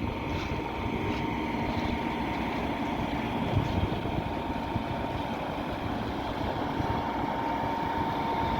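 Truck-mounted concrete pump working steadily, a constant engine and machinery rumble with a faint steady whine through it.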